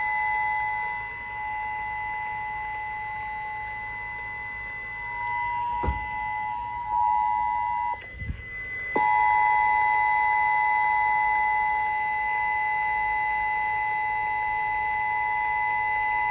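Emergency Alert System attention signal broadcast over the radio: the steady two-tone alert (853 and 960 Hz together) drops out for about a second a little past halfway, then resumes. A thinner, higher steady tone runs under it, and there are two faint thumps around the dropout.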